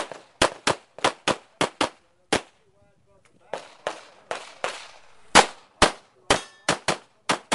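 Pistol shots fired in quick strings, about eighteen in all, often in pairs a third to half a second apart, with a pause of about a second partway through.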